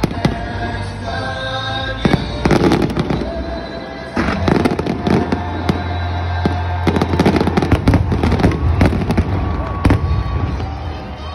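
Fireworks show: aerial shells bursting and crackling in dense volleys from about two seconds in, with music playing underneath.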